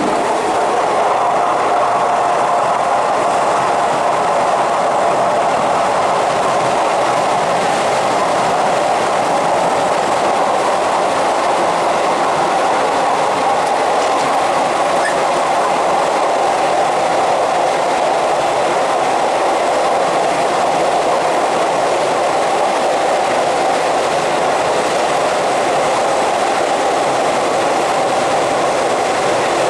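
Suburban electric commuter train running at speed: steady wheel-on-rail running noise with a faint steady whine, unbroken throughout.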